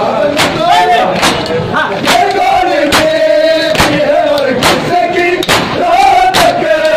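Crowd of men chanting in unison while beating their chests in matam, the Shia mourning chest-beating: a sharp, loud slap of many hands together about once a second under the voices.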